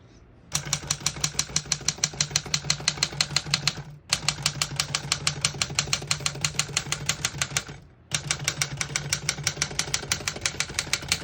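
A 1956 Remington Travel-Riter portable typewriter being typed on in fast, even runs of about eight key strikes a second. The typing breaks off briefly twice, about four and eight seconds in.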